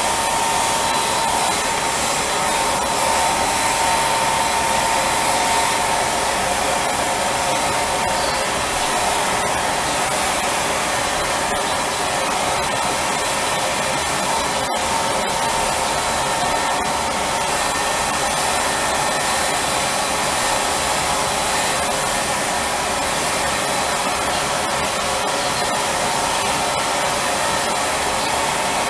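Spray tan machine's turbine blower running steadily as the tanning solution is sprayed, a continuous whooshing hiss with a faint steady whine.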